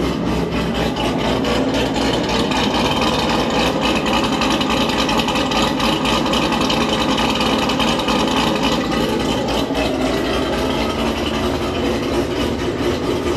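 Cammed, supercharged V8 of a C7 Corvette Z06 idling steadily just after a cold start, with its exhaust valves closed in stealth mode. The passenger-side valve actuator rattle is not occurring while the exhaust is still cold.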